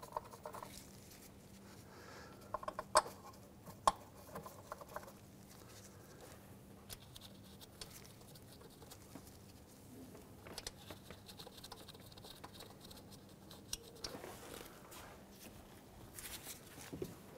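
Faint, scattered clicks and taps of a plastic engine cover being seated and its bolts started by hand, with a few sharper clicks in the first four seconds.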